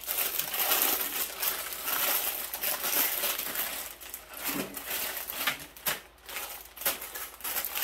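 Plastic bags of LEGO pieces crinkling as they are picked up, shuffled and laid out on a table, with a few sharp clicks among the rustling.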